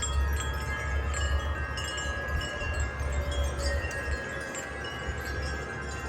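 Several wind chimes ringing together in a gust of wind, overlapping long-ringing tones struck again and again, over a low wind rumble on the microphone.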